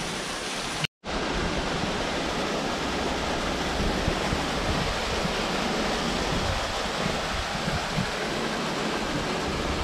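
River water rushing past in a steady, even hiss-like rush. The sound drops out for a split second about a second in.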